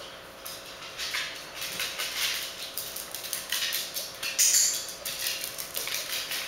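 A corgi's claws clicking on a hard tile floor as it trots and scampers about: a quick, irregular patter of ticks, with one louder, sharper clack about four and a half seconds in.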